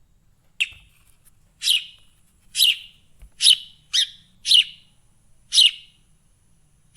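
Sparrow chirping: seven short, high chirps, each dropping quickly in pitch, spaced roughly a second apart and coming a little faster in the middle.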